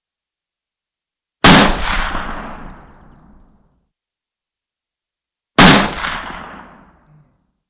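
Two rifle shots about four seconds apart, each with a long rolling echo that dies away over about two seconds.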